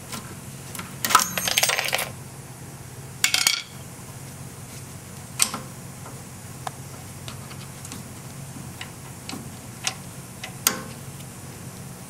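Small screwdriver and hands working the metal retaining clip and cable-end fitting of a parking brake cable at a rear brake caliper: metal clinking and rattling in two short bursts, about a second in and about three seconds in, then a few single clicks as the cable end is freed.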